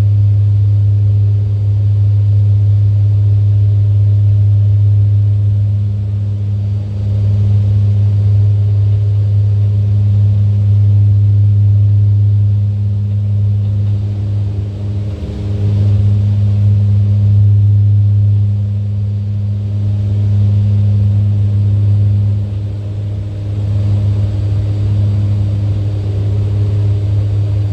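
Steady low engine drone heard from inside a moving vehicle, a deep even hum with a few brief dips in level.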